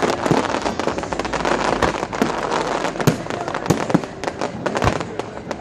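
Aerial fireworks display going off: a dense, rapid run of pops and crackles with several louder bangs mixed in.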